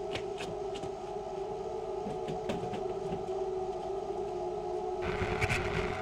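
Steady droning hum on a held low tone, with scattered faint clicks; a rushing noise swells about five seconds in.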